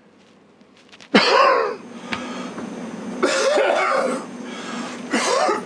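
A man's coughing fit: harsh, hacking coughs and strained breaths that start abruptly about a second in and come in three bouts.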